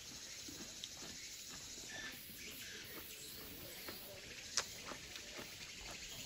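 Faint outdoor ambience: a low, even hiss with a faint, rapid high chirring, and a single sharp click a little past the middle.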